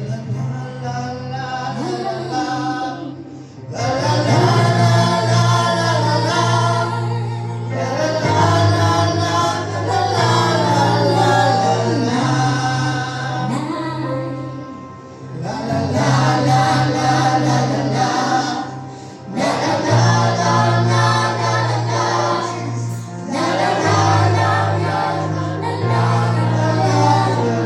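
Gospel worship song sung by a choir over steady low instrumental backing notes, in phrases a few seconds long with brief breaths between them.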